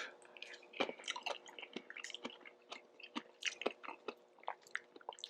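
A person chewing a mouthful of instant ramyeon noodles close to the microphone: many short, irregular wet clicks and smacks, several a second.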